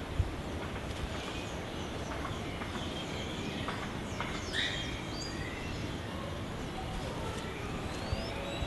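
Scattered short bird calls, chirps and a few gliding whistles, clearest about halfway through, over a steady background noise.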